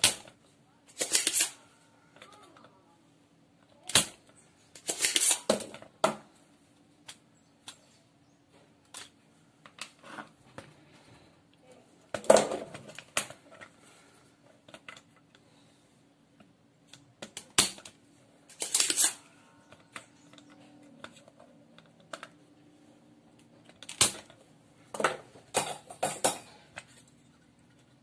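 Spring-loaded desoldering pump (solder sucker) snapping as its plunger is released to pull molten solder from the capacitor leads on a circuit board. There are about a dozen sharp clicks at irregular intervals, some in quick pairs, with lighter clicks from handling in between.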